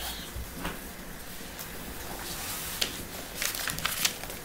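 Low steady background hiss with a few faint, scattered clicks, most of them in the second half.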